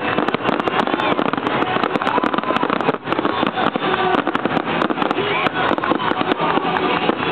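Fireworks display: dense, rapid crackling and popping from many fireworks going off at once, continuous throughout. People's voices are mixed in underneath.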